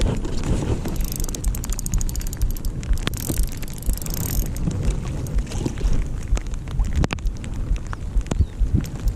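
Wind buffeting the microphone outdoors on open water, a gusty low rumble, with scattered small clicks and knocks, one sharper one about seven seconds in.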